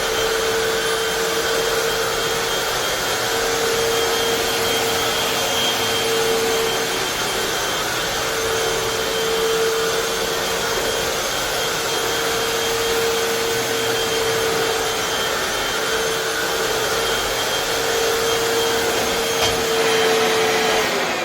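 Hoover FloorMate Deluxe hard floor cleaner running with a steady motor whine. It starts to wind down at the very end.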